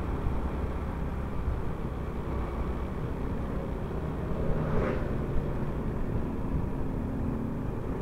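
Honda Supra X125 FI motorcycle being ridden: its single-cylinder engine running steadily under a constant rush of road and wind noise.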